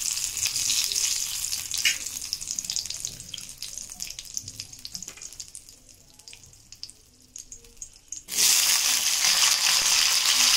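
Bay leaf frying in hot oil in a kadai, a light crackle that dies down. About eight seconds in, diced potatoes are dropped into the oil and a loud, steady sizzle starts suddenly.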